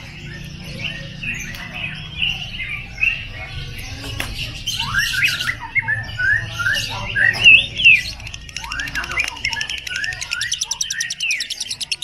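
Yellow lovebird ngekek-ing: a long, unbroken chatter of sharp, squeaky chirps that sweep up and down in pitch. It grows louder and denser about halfway through and ends in a fast, even stutter of notes.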